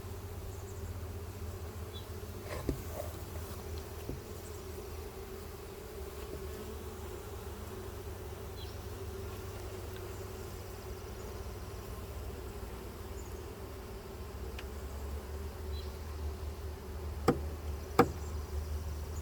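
Honeybees buzzing steadily in a crowd around an opened hive. A few sharp clicks are heard, two of them close together near the end.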